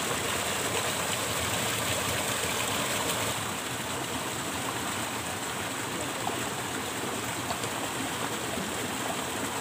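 Shallow rocky stream flowing and burbling over stones, a steady rush of water that drops slightly in level about three seconds in.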